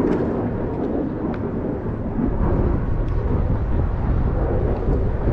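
Wind buffeting the microphone: a loud, unsteady low rumble that keeps on through the whole stretch.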